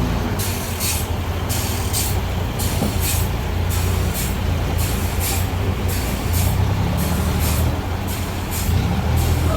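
Portable sawmill running and sawing a suar wood log: a steady engine hum under a high, hissing rasp that pulses about twice a second.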